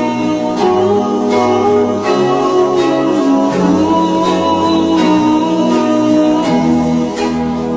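Background music: a song with a singing voice over guitar and a steady beat.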